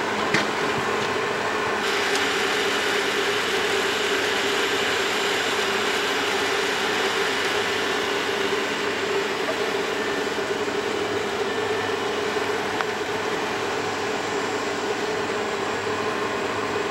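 Winch motor of an open cable lift running steadily with a constant hum as the lift car is lowered down the crater shaft.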